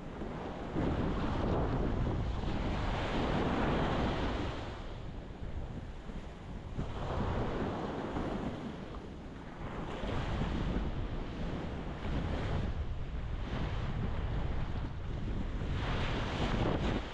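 Ocean waves breaking on a rocky shore in a rushing swell, the loudest surge about a second in, with more around ten and sixteen seconds in. Wind on the microphone rumbles underneath.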